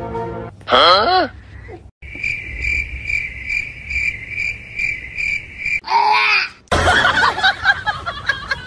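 Cricket chirping: a steady high chirp repeating about three times a second for several seconds in the middle. It is set between a short pitched sound that rises and falls about a second in, a similar one at about six seconds, and a noisy, busy stretch near the end.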